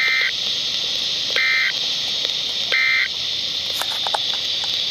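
Three short bursts of EAS (SAME) digital data tones about 1.4 seconds apart over steady radio hiss: the end-of-message code that closes a weather radio warning broadcast.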